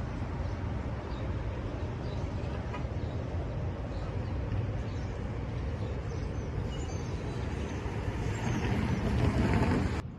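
Steady outdoor city ambience, a low even rumble like distant traffic, swelling louder for a second or so near the end before cutting off abruptly.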